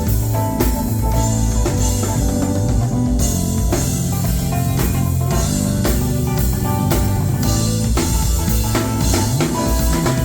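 A band playing through a sound check: drum kit and guitar over low bass notes, with a steady beat.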